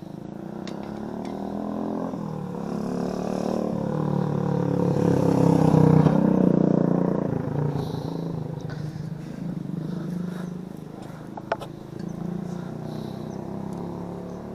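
A motorcycle passing by: its engine grows louder to a peak about six seconds in, then fades away.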